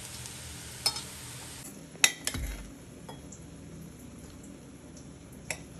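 A few sharp clinks of metal utensils and cookware, the loudest pair about two seconds in followed by a dull thud, with another near the end. A faint frying hiss drops away in the first two seconds.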